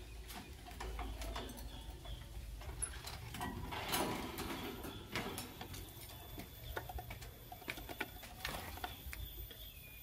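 Blue lovebirds moving about a wire cage: light scattered clicks, scratches and taps from feet on the wire, perch and wooden ledge and from pecking at a corn cob, with a few faint short chirps.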